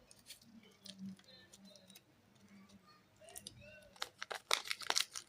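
Soap packaging being handled: scattered taps and crinkles, becoming busier and louder about four seconds in.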